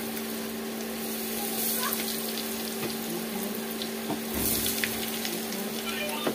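Egg-and-breadcrumb-coated vegetable chops deep-frying in hot oil: a steady sizzle dotted with small crackles, over a steady low hum. The frying swells briefly louder about four seconds in.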